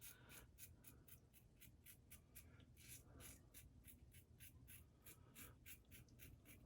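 Faint, quick scraping strokes of a Razorock Eco safety razor blade cutting stubble through lather on an against-the-grain pass, about four or five short strokes a second.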